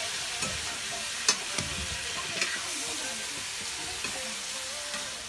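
Food sizzling as it fries in a metal pan over a wood fire, stirred with a metal spatula that clicks against the pan a few times.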